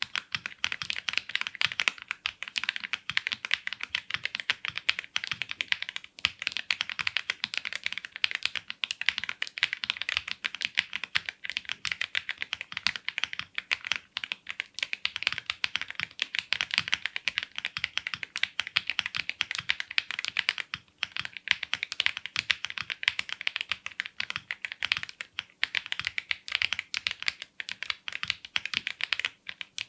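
Fast, continuous typing on a Zoom75 mechanical keyboard fitted with Epomaker Budgerigar tactile switches, the keystrokes clacking densely, with brief pauses about 6, 21 and 25 seconds in.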